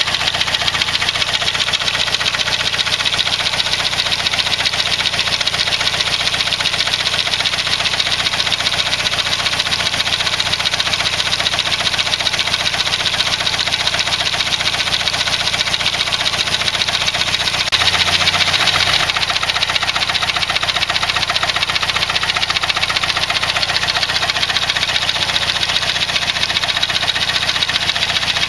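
Saab 9-3's B205E 2.0-litre turbocharged four-cylinder engine running steadily at idle, with a brief louder moment about two-thirds of the way through.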